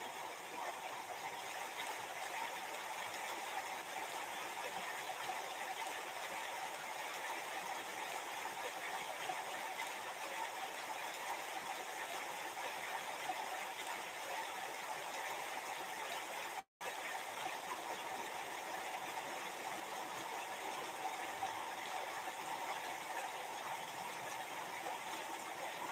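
Steady background hiss of room noise, with no distinct events; the sound cuts out completely for an instant about two-thirds of the way through.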